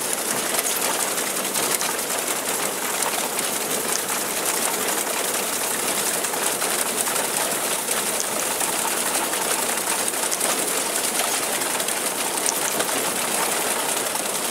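Reaper-binder running as it cuts and binds oats: a steady, fast mechanical clatter with no let-up.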